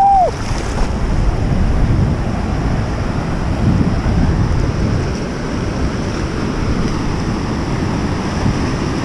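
Ocean surf washing around the legs in shallow water, with wind buffeting the microphone. A brief rising-and-falling tone sounds right at the start.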